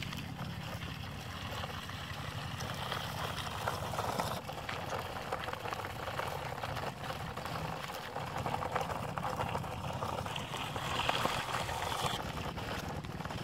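Plastic toy dump truck rolling over gravelly dirt, its wheels crackling on the grit over a low steady hum.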